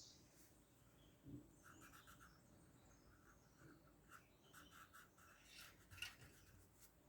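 Faint, quick back-and-forth scratching of colouring strokes on paper, with a few light taps.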